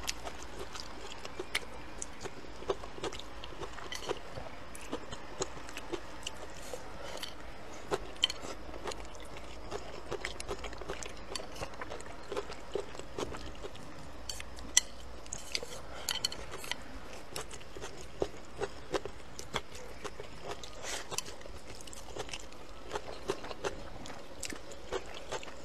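A person eating from a bowl: chewing and mouth sounds, with chopsticks clicking against the bowl now and then, over a steady low hum.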